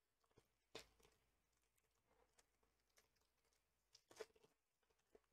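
Faint crinkling and tearing of a foil booster-pack wrapper being torn open by hand, in short crackles, loudest about a second in and again about four seconds in.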